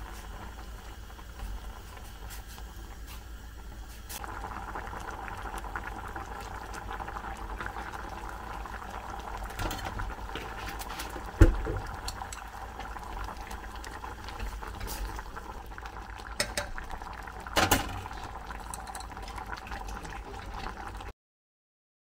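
Perilla-seed noodle soup bubbling at a steady boil in a stainless steel pot on a gas stove, growing a little louder about four seconds in. A few sharp knocks come through, the loudest about halfway, and the sound cuts off shortly before the end.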